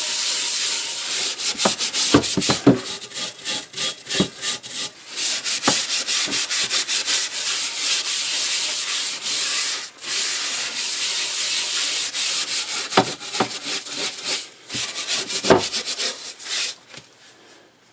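Rapid strokes of scrubbing on a cast iron skillet, with a few sharp knocks, stopping shortly before the end. The scrubbing loosens crud that oven cleaner has liquefied, a stage in stripping the pan for restoration.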